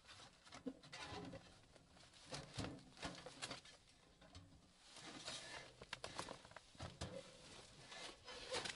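Irregular rustling, light clicks and knocks of gear being handled in a soft bag, coming and going in short bursts of activity.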